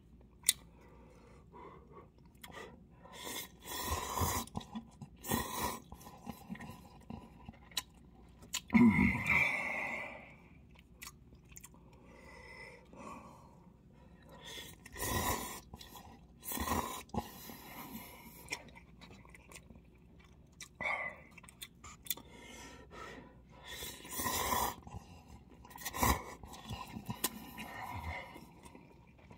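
Instant cup noodles being eaten with chopsticks: separate loud slurps of noodles every few seconds, the loudest about nine seconds in, with quieter chewing between them.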